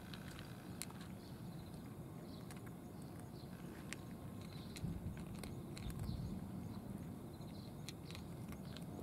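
A cat chewing and crunching food from a dish: a scatter of faint, sharp crunches over a low steady background rumble.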